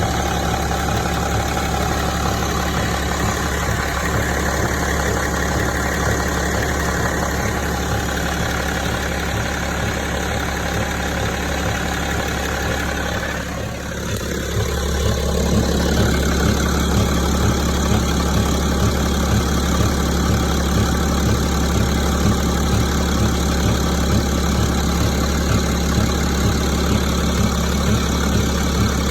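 BMW E65 730d's 3.0-litre inline-six diesel idling with a rhythmic knock from the engine. About halfway through it dips briefly, then runs louder.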